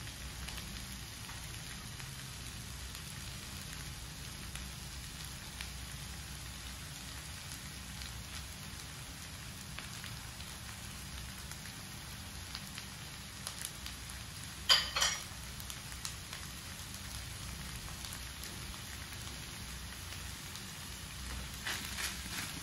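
Kimchi fried rice sizzling steadily in a wok while a silicone spatula stirs it. A short, sharp clatter of knocks comes about fifteen seconds in, and quick scraping strokes of the spatula near the end.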